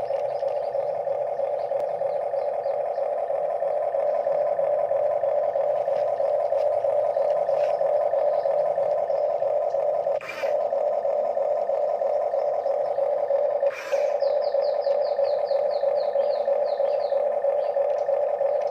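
Steady mid-pitched whine of a Huina RC excavator's electric motors, cutting out briefly with a click twice. Near the end a quick run of high chirps sounds over it.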